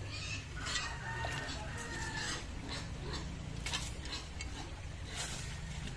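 Grass and leaves rustling and crackling as someone pushes through low undergrowth, over a steady low rumble, with a drawn-out animal call from about half a second to two seconds in.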